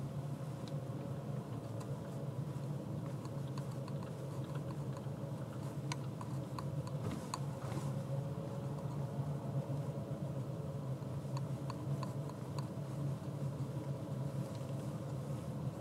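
Steady low drone of a car's engine and tyres, heard from inside the cabin while driving slowly. Twice partway through there is a short run of light ticks.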